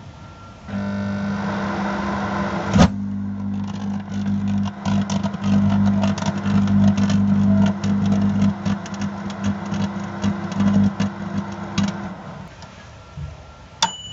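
Microwave oven starts up about a second in with a steady mains hum. A couple of seconds later a single sharp bang, the black powder going off, is followed by dense crackling and snapping over the hum for about eight seconds. Near the end the hum stops, then there is a click and a high beep.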